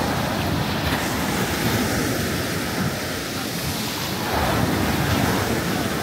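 Sea waves washing onto the beach, with wind buffeting the microphone; the wash swells louder a little past the middle.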